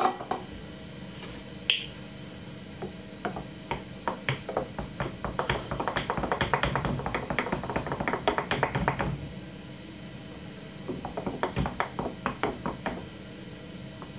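Wooden spoon stirring a frothy drink in a glass jug, knocking and clinking quickly against the glass in two bouts: a long one in the middle and a shorter one near the end.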